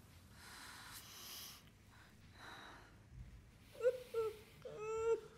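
Close, soft breathing, then from about four seconds in a woman's short, high, wavering whimpers, the last one held about half a second.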